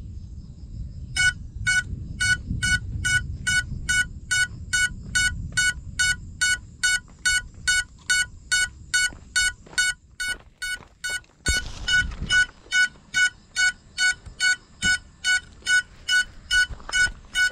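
A downed FPV quadcopter's locator beeper sounding a steady train of short, high beeps, about three a second, over low rustling; the beeps get louder in the second half. It is the lost-model alarm that helps the pilot find the crashed drone in the grass.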